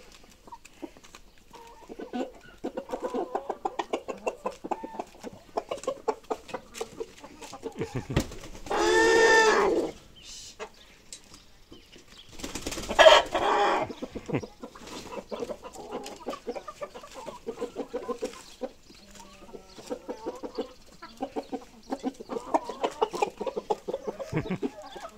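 Chickens clucking continuously in short, quick calls, with two louder, longer squawking calls, one about 9 seconds in and one about 13 seconds in, and many sharp ticks throughout.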